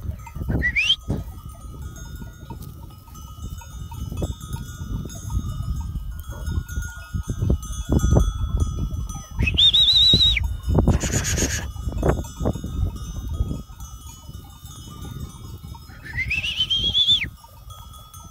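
Wind rumbling on the microphone over a flock of sheep. A few high calls that rise in pitch come through: a short one near the start, one near the middle and one near the end.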